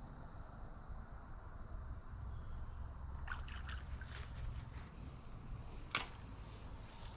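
Insects trilling steadily in one constant high tone, with a few soft clicks and a single sharp tick about six seconds in.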